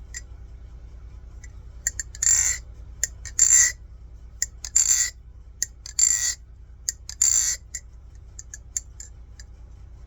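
LDY Kite AL balisong (butterfly knife) being flipped: sharp metallic clicks of the handles and latch, with five short bright rattles about a second apart as the handles swing open and shut.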